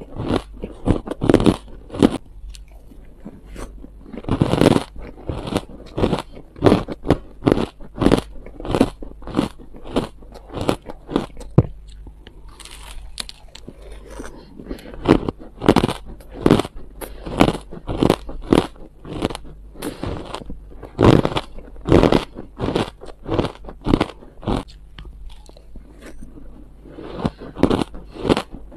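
Mouthfuls of crushed ice being bitten and chewed close to a clip-on microphone: a steady run of sharp, irregular crunches, about two a second.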